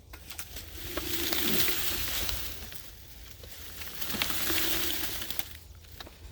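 Chainsaw run up twice, each burst lasting about two seconds with a hissing cutting noise, its engine note dipping briefly as the chain bites into the wood.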